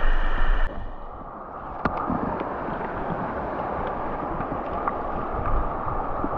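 River water running over a shallow stony riffle, a steady rushing. Wind buffets the microphone at the start, cutting off abruptly under a second in, and there is a sharp click about two seconds in.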